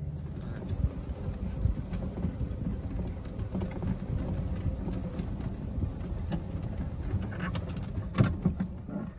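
Club Car golf cart driving over a rough grassy track: a steady low rumble with rattling and bumping, and a few sharper knocks near the end.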